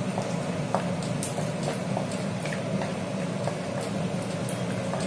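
Cashews and almonds frying in hot desi ghee in a kadhai: a steady sizzle with scattered small pops and crackles, while a wooden spatula stirs them.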